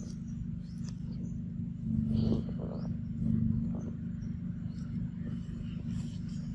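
A steady low engine hum, like a motor vehicle running nearby, with a brief louder swell about two seconds in.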